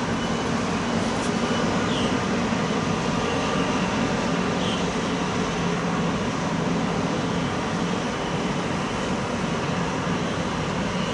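Steady low rumble and hiss of background noise, with a faint hum underneath and three faint short chirps in the first five seconds.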